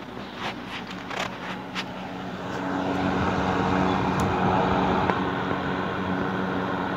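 Electric fan running: a steady motor hum under a rush of moving air that grows louder about two to three seconds in, then holds steady. A few sharp knocks in the first two seconds.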